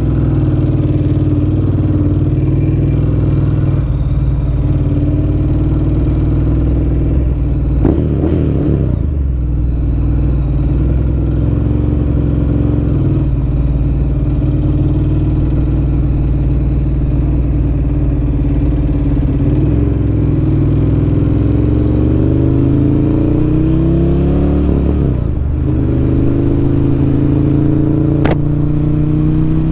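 Ducati Monster 1100 EVO's air-cooled L-twin running through a Termignoni exhaust, holding steady revs for much of the time. In the last third it accelerates, the pitch rising, with a short break about 25 seconds in before it climbs again.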